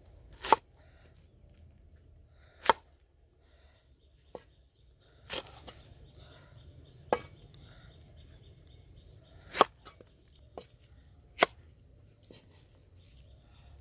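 Cleaver chopping through banana flower onto a wooden chopping board: about eight single sharp chops, a second or two apart at an uneven pace.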